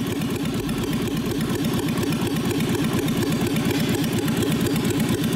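Starter motor cranking an engine whose cam and crank timing gears have been swapped, so the cam turns twice per crank turn. It churns at a steady, even rhythm and does not catch: the engine only shuffles air back and forth, with its valves almost constantly open and next to no compression.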